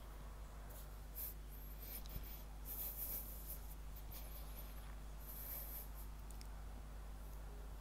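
Scratchy rustling of a wired earphone microphone and cable rubbing against clothing as the head moves, in short patches over a steady low electrical hum.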